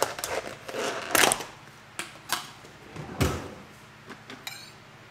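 A handful of sharp knocks and clatters, about five in the first three seconds or so, with a short rattle near the end, as of hard objects being handled and set down.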